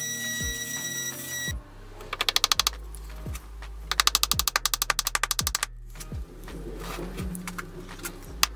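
A Dremel rotary tool whines steadily for about the first second and a half. Then a small hammer drives tiny panel pins into miniature box hinges in quick runs of light, rapid taps. Background music with a steady electronic kick-drum beat plays throughout.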